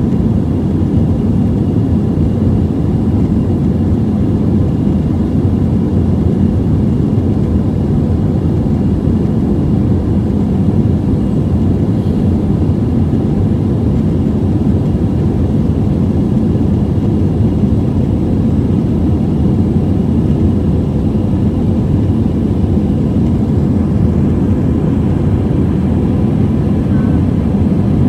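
Steady cabin noise inside an Airbus A320 in flight shortly after take-off: a deep, even rumble of the jet engines and rushing air, with faint steady hums above it.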